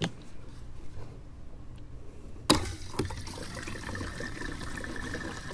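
Gasoline pouring from a plastic gas can's spout into the fuel tank of a Yamaha C3 scooter. The pour starts about halfway in with a knock, then runs on steadily.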